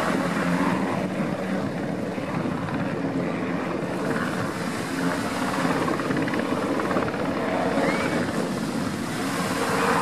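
Sikorsky S-92 search-and-rescue helicopter in flight: steady rotor and turbine noise with a low hum underneath.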